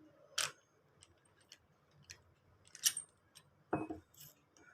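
Scattered small metallic clicks and taps from a chuck key and drill chuck being worked to loosen and remove a drill bit, with three louder clicks among fainter ticks.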